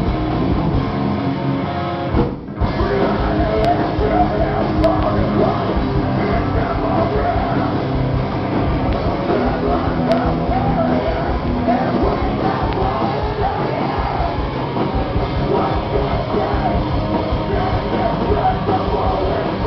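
Live rock band playing, with electric guitars and drums. The music drops out for a moment about two seconds in, then comes straight back in.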